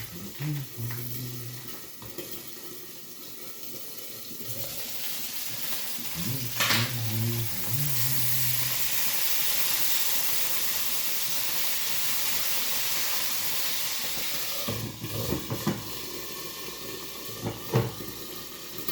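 Kitchen tap running into a sink, a steady rush of water for about ten seconds that stops abruptly, followed by a few clinks and knocks.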